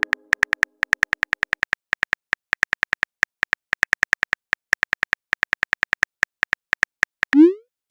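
Phone keyboard typing clicks from a texting app, a quick uneven patter of about six to seven taps a second as a message is typed. Near the end a short rising swoosh, the app's message-sent sound.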